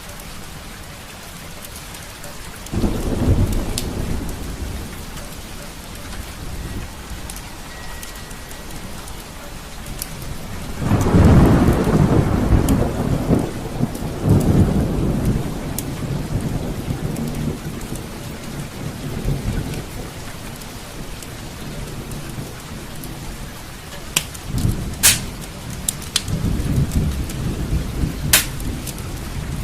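Steady rain with rolling thunder: a rumble about three seconds in, a long loud peal from about eleven to fifteen seconds, and more rumbling near the end. A few sharp pops late on, typical of a fireplace crackling.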